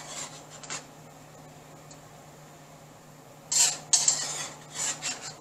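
Metal tongs clattering and scraping against a steel wok a few times, starting about three and a half seconds in after a quiet stretch, as pieces are picked out of the stir-fry.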